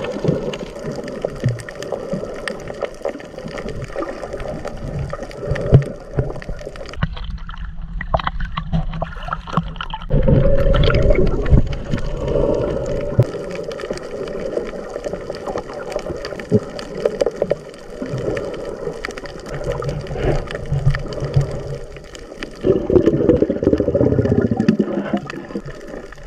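Water splashing and gurgling close to the microphone. A few seconds in there is a muffled stretch, then the full splashing noise returns.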